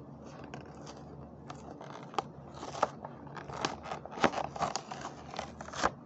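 Clear plastic blister of a Hot Wheels toy-car package crackling and snapping in irregular clicks as it is worked loose from its cardboard backing card, the clicks coming thicker in the second half.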